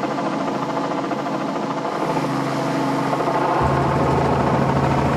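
Helicopter hovering close by, its engine and rotor running steadily. About three and a half seconds in, a deeper tone joins and the sound gets a little louder.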